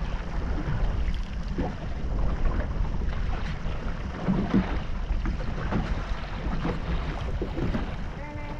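Fishing boat under way: a steady low engine rumble with wind buffeting the microphone and water noise, and a few brief knocks or splashes.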